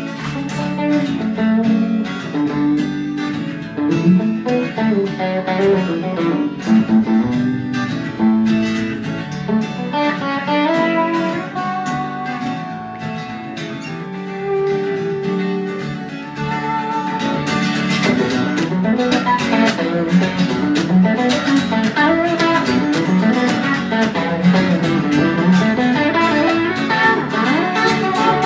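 Electric guitar solo played live over a strummed acoustic guitar, with no singing; the playing gets louder and busier about two-thirds of the way in.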